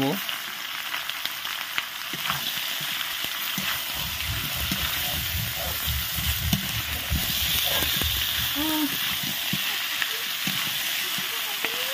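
Chicken pieces and potatoes frying in hot oil in a metal kadai: a steady sizzle. From about four seconds in, a metal spatula turns them over, scraping against the pan.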